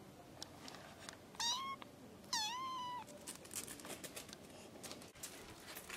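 Kitten meowing twice, two high-pitched calls about a second apart, the second one longer and dipping before it levels off.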